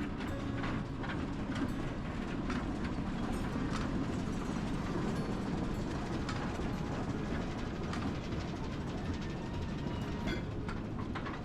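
Passenger train rolling on rails, a steady low rumble with scattered clicks and knocks from the wheels and cars.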